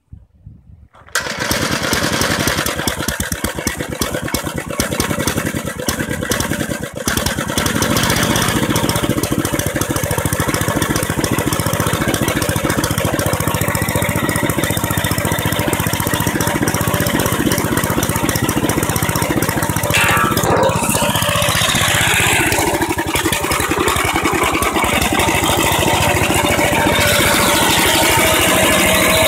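1967 Gravely C8 walk-behind tractor's single-cylinder engine starting for the first time after a custom restoration. It catches about a second in, runs a little unevenly for several seconds, then settles into a steady run.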